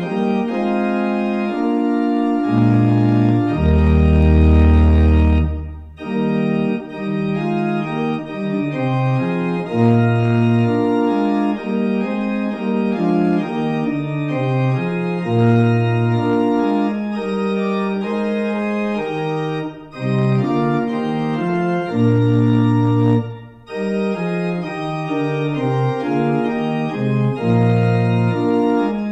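Organ playing slow, held chords over a low bass line, with short breaks between phrases.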